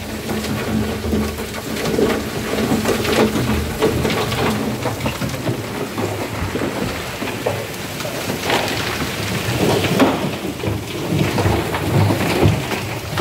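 High-pressure water jet blasting hardened concrete inside a ready-mix truck's steel mixer drum: a steady loud rush of spray with irregular spattering and small impacts as water and debris hit the drum walls.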